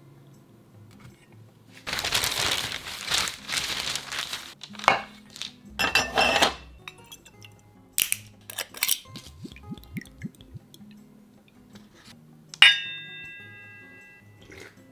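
A drinking glass being handled: a rush of noise and several knocks, then one sharp glass clink that rings on and fades, over soft background music.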